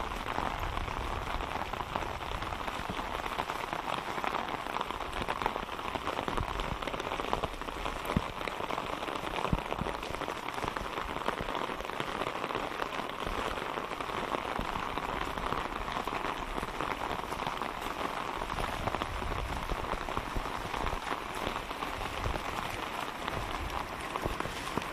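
Steady rain falling onto waterlogged ground and puddles.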